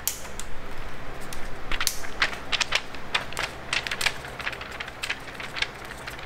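Pages of a paper instruction booklet being turned quickly: a rapid run of paper crackles and rustles, densest through the middle. A faint steady hum lies under them.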